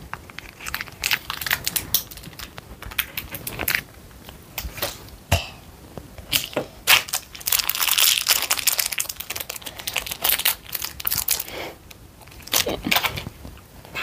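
Thin plastic clay wrappers crinkling and crackling as they are handled and opened, in irregular runs of sharp crackles that are thickest around the middle.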